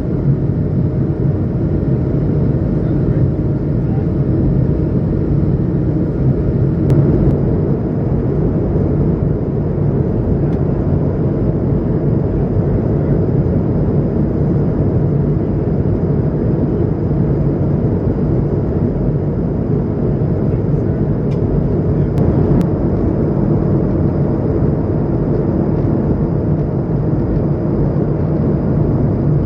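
Steady jet cabin drone inside an Airbus A220-100, the hum of its Pratt & Whitney PW1500G geared turbofans and rushing air, with a faint high steady whine over it and a couple of faint clicks.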